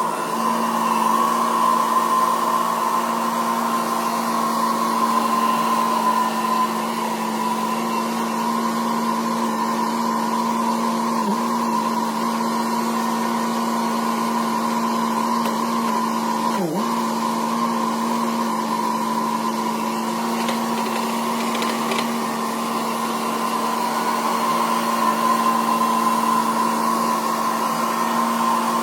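A small motor-driven machine running steadily at high speed, its pitch dipping briefly twice, the second dip a little past halfway, as if momentarily loaded.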